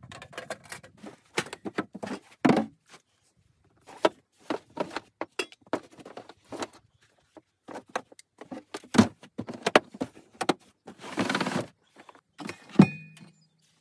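Camping gear being handled in a pickup bed: a string of clicks, knocks and clatters as hard items and cases are packed and moved, with a short rustle about eleven seconds in and a heavier thump near the end.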